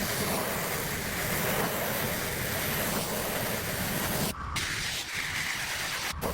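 Pressure washer jet spraying onto a surface: a steady, dense hiss over a low rumble, cut off abruptly twice, about four and six seconds in.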